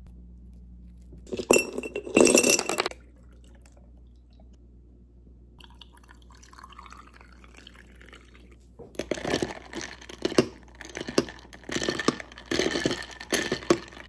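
Ice clattering in a glass mason jar: a couple of loud clinks about a second and a half in, a soft pouring sound a few seconds later, then rapid repeated clinking of ice against the glass as the iced coffee is stirred.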